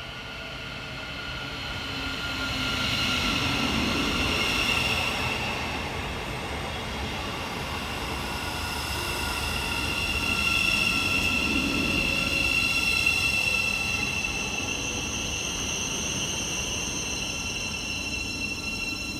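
Class 717 Siemens Desiro City electric multiple unit pulling into the station, running with a steady high-pitched whine and squeal over the rumble of the wheels, swelling louder twice as it comes in.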